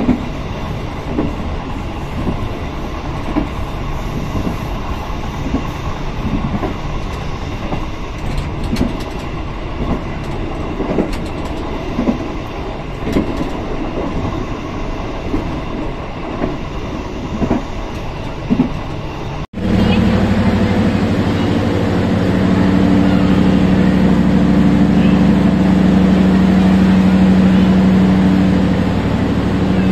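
Passenger train running along the track, its wheels clicking over the rail joints every second or so. After a sudden cut about two-thirds of the way through, a louder, steady engine hum comes from a train standing at a station platform.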